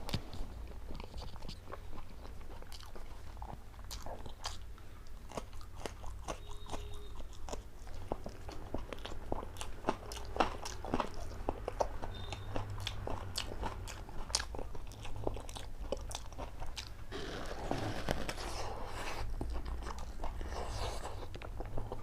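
Close-miked eating sounds: a person biting and chewing food, with many sharp, irregular crunches and wet mouth sounds, and a denser stretch of chewing noise about seventeen seconds in.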